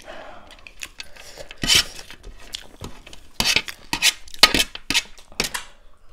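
Close-miked eating of dry, crunchy chicken chatpate: irregular crackly crunches from biting and chewing the puffed-rice mix, mixed with spoon-and-plate clatter. The crunches grow busiest in the second half.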